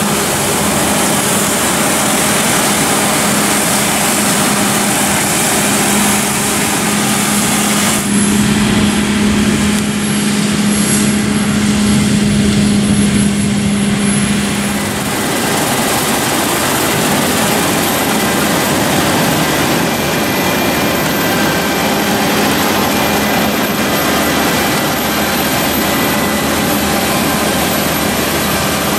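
Claas Lexion 7500 Terra Trac combine harvester running under load while threshing soybeans: a steady engine and machinery drone with a constant hum. The sound shifts abruptly about 8 and 15 seconds in.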